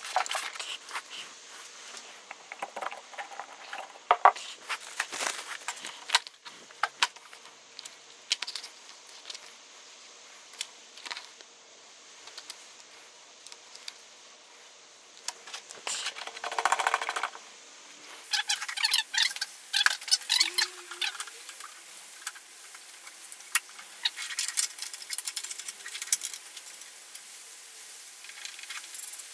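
Parts of an Evolution R210SMS+ sliding mitre saw being handled and fitted together during assembly: scattered clicks, knocks and rattles of metal and plastic parts, with a longer rustling scrape about 17 seconds in and busier clicking in the last third.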